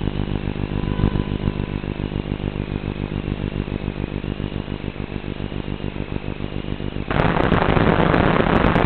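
Analog FPV video-link audio: a steady, pulsing electrical buzz. About seven seconds in it switches abruptly to loud static hiss as the radio signal from the downed drone weakens.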